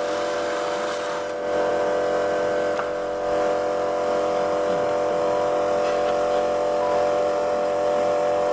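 A steady machine hum runs throughout, with a faint click about three seconds in.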